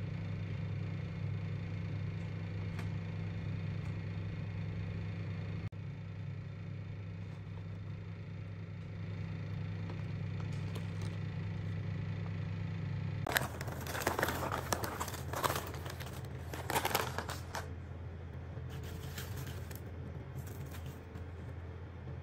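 A plastic chip bag of Haitai Honey Butter Chips rustling as it is handled and opened, in loud irregular stretches starting about thirteen seconds in and again near the end, over a steady low hum.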